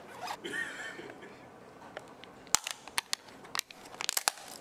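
Handling noise: a quick, irregular run of sharp clicks and taps in the second half, with faint rustling between them.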